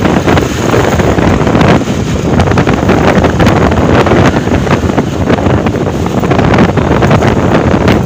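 Wind buffeting the microphone of a Honda CB125 motorcycle on the move, with the bike's engine running underneath.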